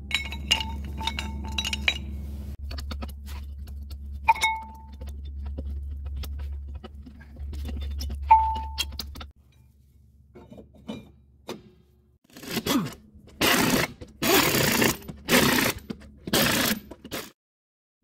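Metal drum-brake parts (shoes, springs, drum) clinking and scraping as they are handled and fitted, with short ringing pings over a steady low hum. Near the end come about five loud short bursts from a pneumatic air tool, the impact wrench used on the wheel.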